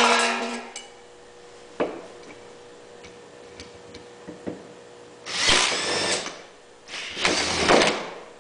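Milwaukee 18-volt cordless drill on its impact setting, run in two bursts of about a second each, around five and seven seconds in, driving a socket to tighten a 3/8-inch bolt into metal.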